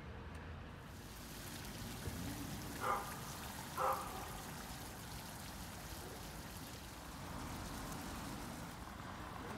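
Steady splashing of water pouring from garden hoses onto the pavement, floodwater being pumped out of a property. Two short, louder sounds about a second apart are heard near the middle.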